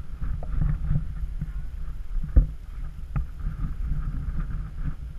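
Wind buffeting the camera's microphone in a steady, uneven rumble, over water sloshing below. Two sharp knocks come a little before halfway and again a moment later.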